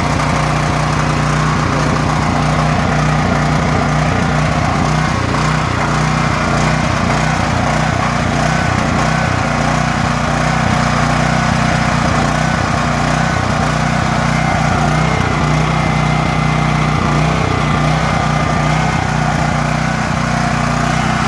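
Champion portable generator's small gasoline engine running steadily under no change of speed, after its stuck intake valve was freed and its carburetor repaired.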